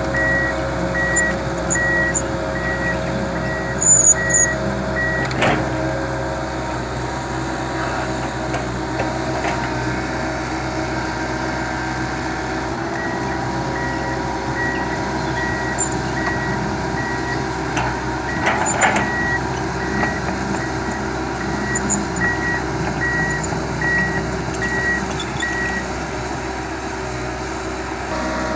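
Komatsu PC200LC tracked excavator's diesel engine running steadily, with its travel alarm beeping at about three beeps every two seconds. The beeping runs for the first five seconds or so, stops, then starts again near the middle and runs for about thirteen seconds. There are a couple of sharp knocks, one about five seconds in and one about two-thirds of the way through.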